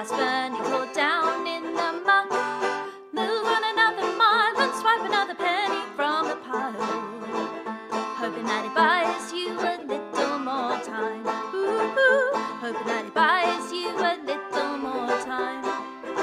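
A song with a banjo prominent among plucked strings, in a folk or bluegrass style.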